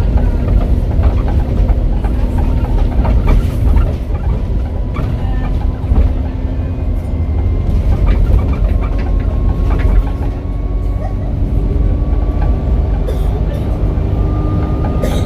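Alexander Dennis Enviro400H double-decker bus, converted from hybrid to diesel drive, running along with a steady low engine rumble, clicks and rattles, and a thin turbo whistle that rises slowly in pitch through the second half.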